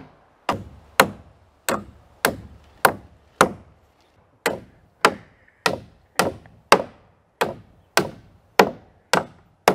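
Hammer driving nails through a diagonal wooden let-in brace into wall studs: steady, evenly spaced blows about two a second, with a brief pause about four seconds in.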